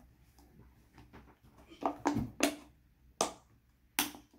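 A rubber balloon being stretched over the neck of a small plastic water bottle by hand, with a few sharp snaps and clicks of rubber and plastic, most of them in the second half.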